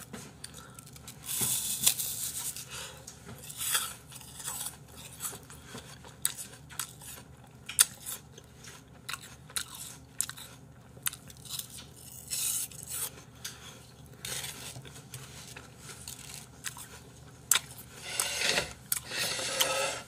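Crisp, irregular crunching of raw apple slices being bitten and chewed close to the microphone.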